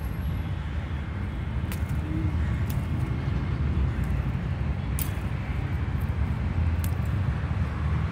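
Steady low rumble with a few sharp clicks scattered through it, as green beans are picked by hand from the plant.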